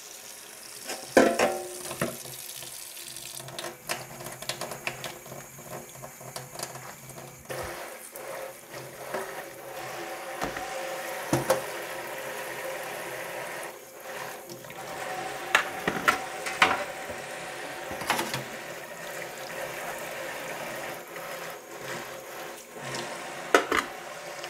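Kitchen tap running into a stainless steel sink while cutlery and egg poach pods are scrubbed and rinsed under the stream. Sharp clinks and knocks of the utensils against the steel sink come now and then over the steady rush of water.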